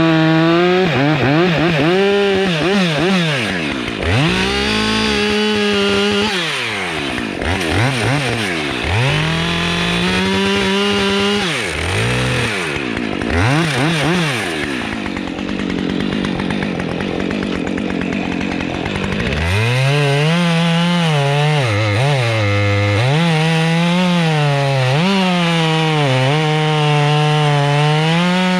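Husqvarna 592XPG two-stroke chainsaw running hard while cutting into a big pine. Its pitch drops again and again as the chain takes load in the wood, then climbs back.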